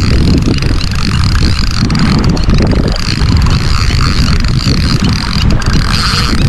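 Wind buffeting the microphone in a loud, steady rumble, over a thin, steady high-pitched hiss.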